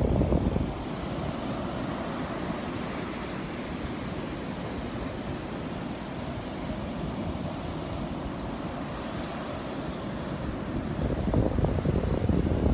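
Surf washing onto the beach, a steady rush, with wind buffeting the microphone in heavy gusts at the start and again near the end.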